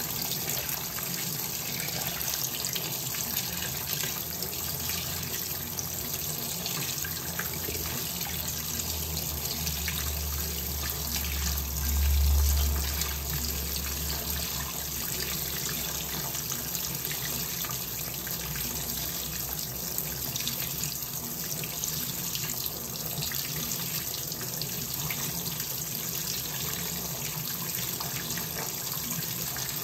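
Fisher & Paykel WL8060P1 top-loading washing machine filling, water running steadily into the tub. A low hum swells and fades about twelve seconds in.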